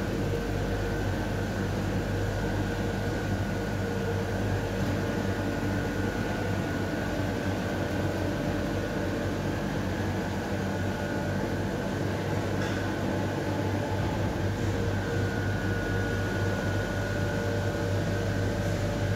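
Steady machinery hum: a low drone with a few steady higher tones above it, unchanging throughout.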